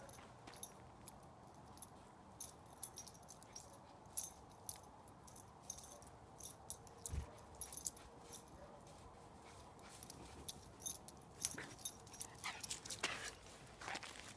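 Deep snow crunching underfoot: a scattered run of short, crisp crunches and crackles that grow heavier and closer together over the last few seconds.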